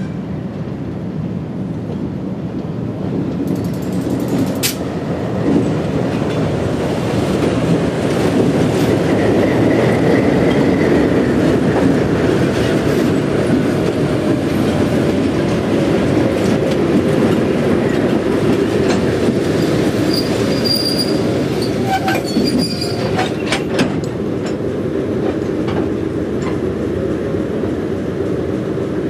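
Diesel switching locomotive rolling slowly past with a cut of covered hopper cars, its engine running under a dense rumble of wheels. Wheel flanges squeal on the curved track, a lower squeal about ten seconds in and higher ones near the end, with sharp clanks from the wheels over rail joints and switches.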